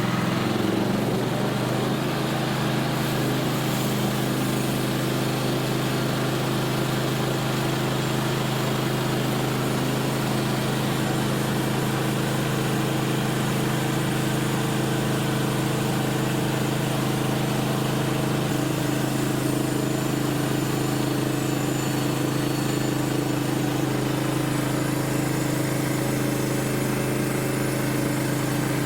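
The Woodland Mills HM130 Max sawmill's gasoline engine running at a steady, unchanging speed.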